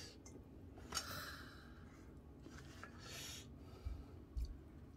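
Faint scraping and light knocks of a metal spoon scooping rice in a stainless steel mixing bowl, with a short hissy breath.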